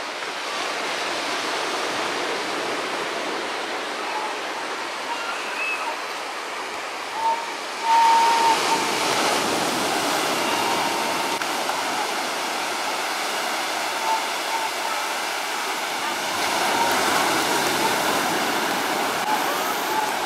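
Ocean surf breaking and washing up a sandy beach, a steady rushing noise, with faint voices of people on the beach.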